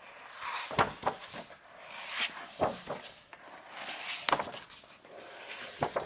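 Pages of a hardbound book being turned by hand: several quick paper swishes and rustles as the leaves are flipped over.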